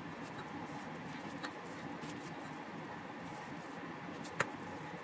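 Faint steady hiss with soft, small handling noises as sticky dough is rolled by hand and set onto a plastic-wrapped baking sheet, and one sharp click about four seconds in.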